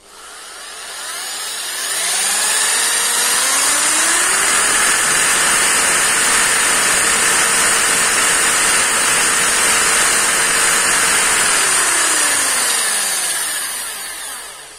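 Electric drill spinning a DTE-1 tachometer sensor: the motor whine rises in pitch as it speeds up over the first few seconds, holds steady, then falls as the drill slows and stops near the end.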